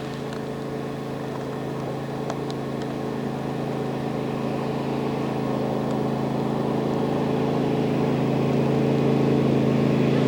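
An engine running steadily with an even hum, growing gradually louder.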